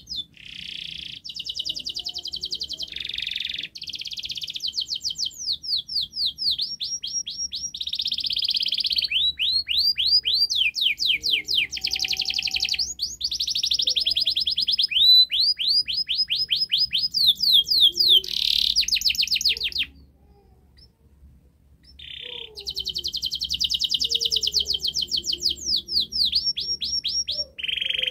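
Domestic canary singing a long, vigorous song of rolling trills and fast runs of repeated falling whistled notes; it stops for about two seconds about two-thirds through, then starts again. A master song of the kind played to coax quiet canaries into singing.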